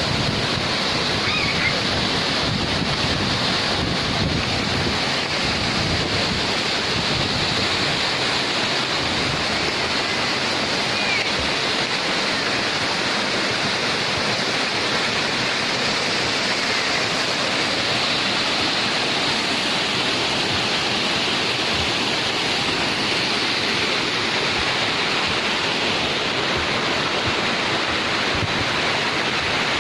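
Waterfall: falling water pouring and splashing in a steady, unbroken rush.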